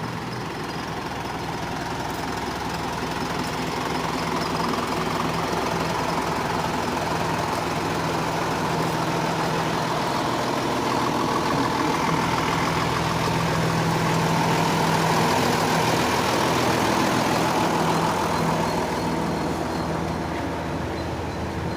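Concrete pump's engine running steadily, growing a little louder through the middle and easing off slightly near the end.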